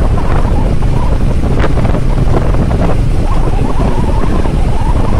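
Loud, steady wind buffeting on the microphone of a motorcycle rider at speed, mixed with the motorcycle's engine and road noise.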